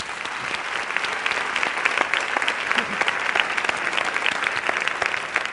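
A large audience applauding steadily, a dense mass of many hands clapping.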